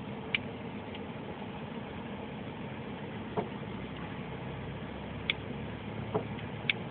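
Toyota car engine and road noise heard from inside the cabin as the car drives slowly, a steady low hum. About five short, sharp clicks come through it, the loudest near the end.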